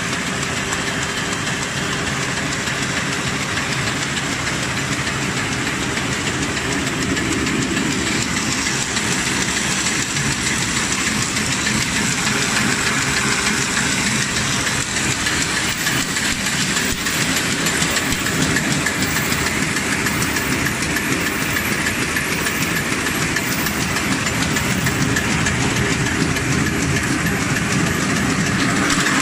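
Automatic paper bag making machine running continuously: a steady, rapid mechanical clatter with no pauses.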